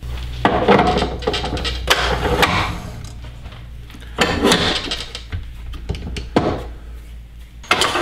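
Handling sounds at a stopped wood lathe: sharp metal clicks and knocks as a four-jaw chuck is threaded onto the headstock spindle and a green walnut bowl blank is handled against it, with several rustling scrapes in between, over a low steady hum.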